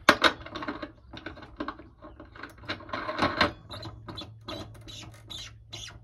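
Stainless steel parts of a Bellman CX25-P stovetop espresso machine clinking, knocking and scraping as it is put back together by hand. The lid and coffee separator are fitted onto the body in irregular light clicks, the loudest just after the start and about three seconds in.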